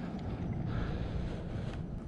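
Wind rumbling on the microphone, a steady low noise.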